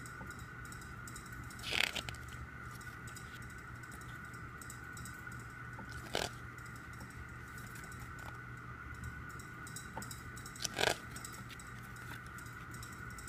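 Pages of a CD album booklet being turned by hand: three brief paper flips, about four to five seconds apart, over a steady faint hum.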